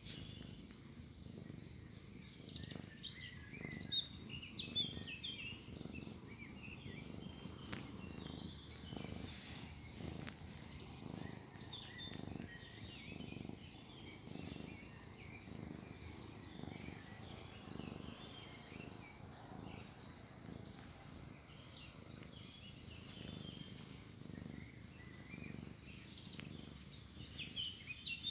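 Domestic tabby cat purring close to the microphone, the low purr swelling and fading about once a second with its breathing, a contented purr while it is stroked under the chin. Small birds chirp in the background.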